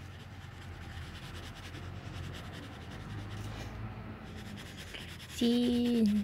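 Colored pencil scratching and rubbing on paper as it shades in an area, a faint steady scratching. Near the end a voice hums briefly, louder than the pencil.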